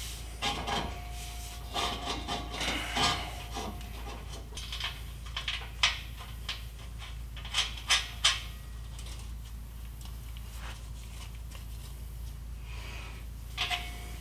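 Metal clinks, knocks and scraping as a steel DPF delete pipe is handled and fitted up to the exhaust flange under a pickup, with the sharpest knocks about six and eight seconds in.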